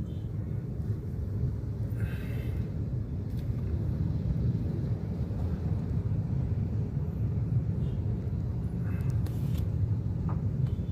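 Steady low rumble of a vehicle driving through heavy traffic.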